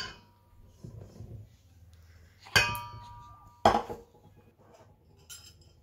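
Two sharp metal clinks about a second apart, the first leaving a brief ringing: a stainless steel saucepan knocked against a stainless steel mixing bowl and set down after pouring flour.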